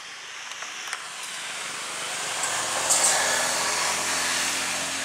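A motor vehicle engine approaching, its rushing noise and low hum growing louder, loudest about three seconds in, then easing a little.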